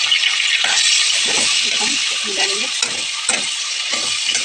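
Onions, tomatoes and ginger-garlic paste sizzling in hot oil in a pan, with a spatula stirring and scraping through them in about seven strokes.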